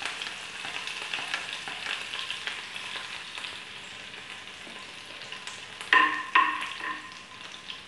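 Chopped green chilli sizzling in hot oil with cumin, mustard seeds and curry leaves in a nonstick frying pan, with steady crackling and popping. About six seconds in, a metal spoon stirs through the pan, giving a few short squeaky scrapes.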